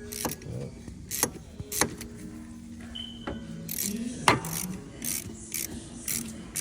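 Quarter-inch hand ratchet loosening the alternator's mounting stud: a few separate sharp knocks at first, the loudest about four seconds in, then a run of quick ratchet clicks about two to three a second.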